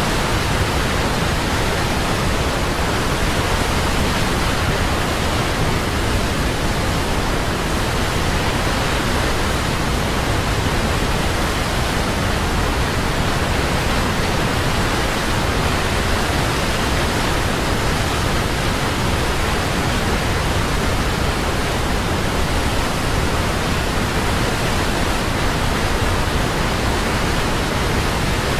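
Large waterfall: a loud, steady roar of falling water with no breaks or changes.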